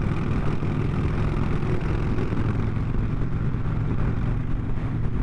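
Motorcycle cruising at a steady speed, its engine running and its tyres humming over the open steel-grate deck of a drawbridge span: a steady, unbroken mix of low hum and road noise.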